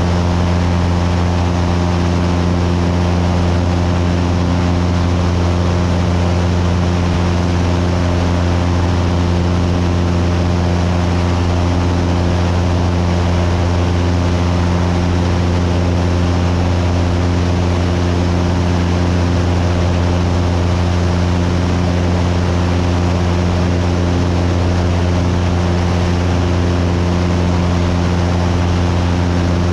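Cessna 172's piston engine and propeller running steadily in cruise flight: a constant low drone with several steady tones, under an even hiss of rushing air.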